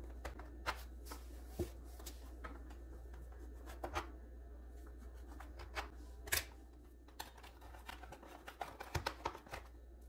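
Light, scattered clicks and scrapes of a knife and a cake server against an aluminium baking pan as a cake is cut and a slice is lifted, with the sharpest click a little past six seconds in and a quick run of clicks near the end.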